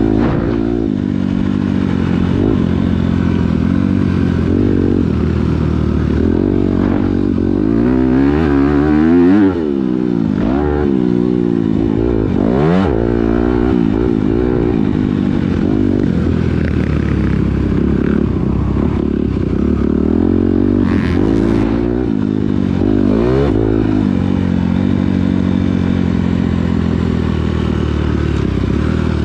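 Four-stroke Honda CRF motocross bike engine under hard riding, heard close from the bike itself, its pitch climbing and dropping again and again as the throttle is opened and chopped through the corners and gear changes.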